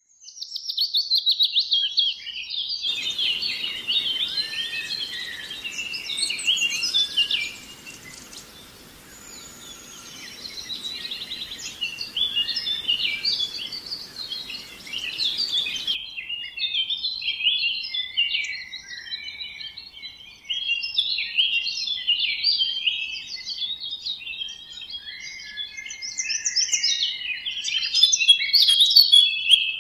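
Birds chirping and singing, many short overlapping calls and trills throughout, with a faint steady hiss beneath them for the first half that cuts off suddenly about halfway through.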